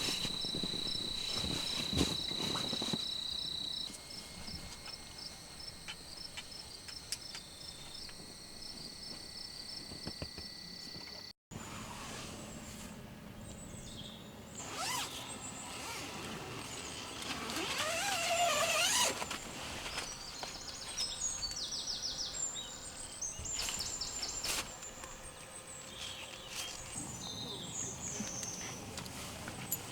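Crickets and other night insects trilling steadily. About eleven seconds in the sound cuts, and rustling and light knocks of handling take over, with short repeated insect chirps.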